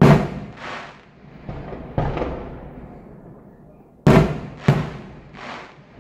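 Fireworks bursting overhead: about seven bangs, the loudest right at the start and about four seconds in, each trailing off in an echoing rumble.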